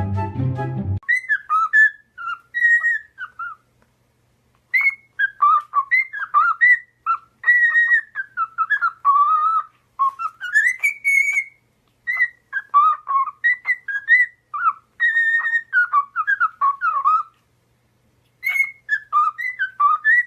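A parrot whistling a tune in phrases of quick up-and-down gliding notes, with short pauses between phrases. Background music cuts off about a second in.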